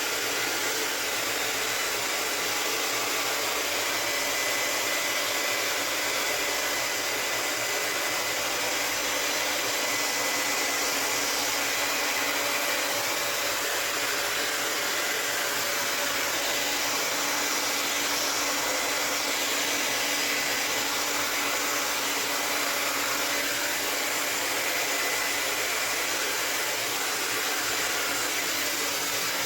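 Hair dryer running steadily: a continuous rush of air with a faint steady whine.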